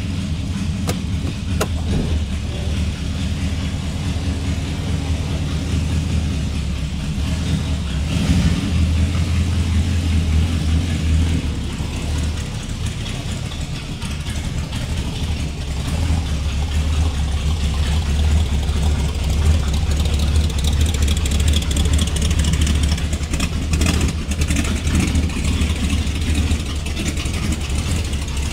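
1964 Dodge 330's 383 V8 idling steadily through its minimal, noisy exhaust, swelling in level a few times.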